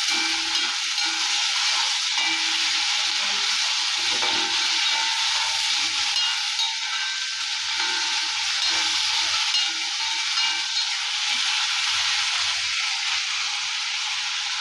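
Potato slices sizzling steadily in hot oil in a kadai while a spatula stirs them, with a scrape of the spatula against the pan now and then.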